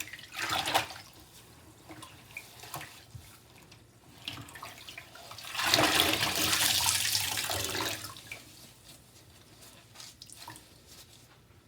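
Water wrung from a soaked sponge and splashing into a basin: a short squeeze under a second in, then a longer gush of about two and a half seconds from the middle on that tails off, with scattered drips between.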